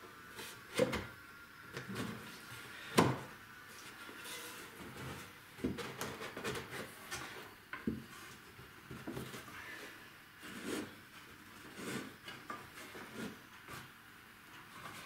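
Finger-jointed wooden boards being handled and pushed together in a test fit: irregular wooden knocks and clicks with rubbing between them, the two sharpest knocks about one and three seconds in.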